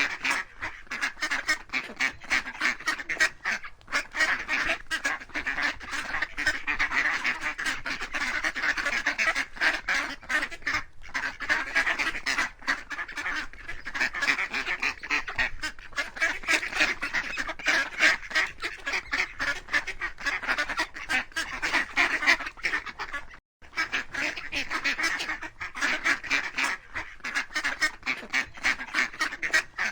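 A flock of waterfowl calling over one another in a continuous, dense chatter, with a brief break about three-quarters of the way through.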